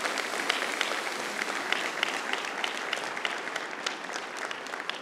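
Audience applauding, a dense patter of many hands clapping that slowly dies down near the end.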